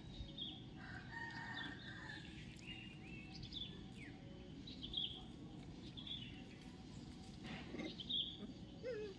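Birds calling in the background: many short high chirps scattered throughout, a longer held call about a second in and a falling call near the end, over steady low background noise.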